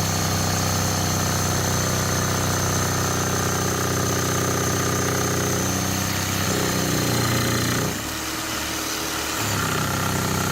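A motor running steadily with an engine-like hum. Its pitch shifts between about six and eight seconds in, then it drops in level briefly before settling back.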